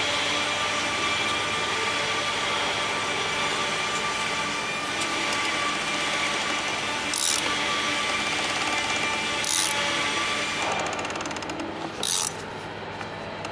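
A socket ratchet turning the oil filter housing cap clicks in three short bursts, about two and a half seconds apart, with a run of rapid clicks before the last one. Under it a steady mechanical hum drops away near the end.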